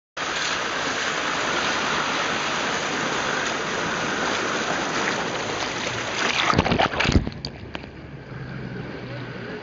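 Water rushing and splashing around a Land Rover Defender's wheel as it drives through a river ford. The noise is loud and steady for most of the time, then breaks into a few loud splashes about two-thirds of the way through and drops away sharply.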